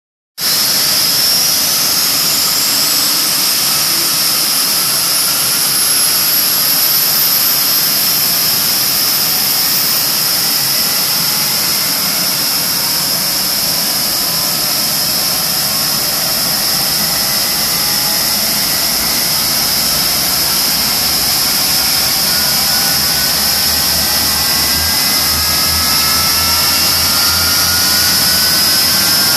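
General Electric J79 axial-flow turbojet running on a test stand inside an enclosed engine test cell: a loud, steady jet rush. A high whine climbs steadily in pitch over the first ten seconds, and lower whining tones rise slowly later on.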